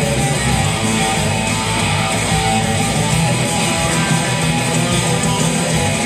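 Electric guitar playing a surf-style instrumental tune, a steady run of picked notes.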